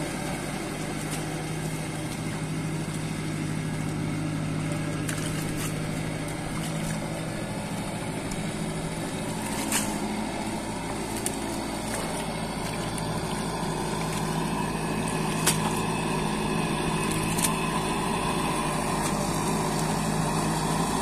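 Kubota MU5501 tractor's diesel engine running steadily under load as it drives a rotavator through wet paddy mud, with a few short clicks partway through.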